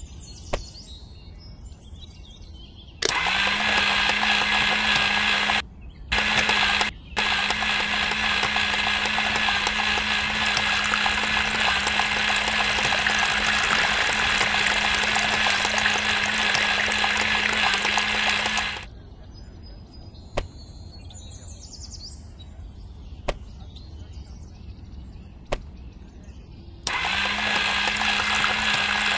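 Small DC motor of a miniature homemade juicer running while it grinds carrot, a steady hum over a harsh grinding noise. It spins up about three seconds in, drops out briefly twice, stops after about fifteen seconds, and starts again near the end. A few sharp clicks sound in the quiet between runs.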